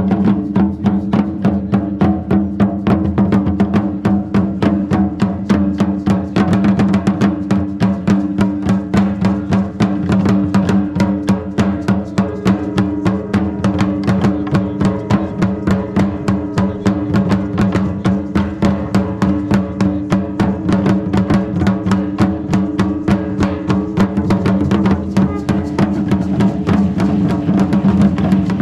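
Live music for a traditional Mexican ritual dance: a drum beating a fast, even rhythm under a steady held melodic line.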